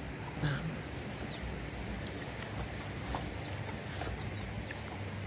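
Scattered faint bird chirps and a brief low cluck about half a second in, over a steady quiet outdoor background.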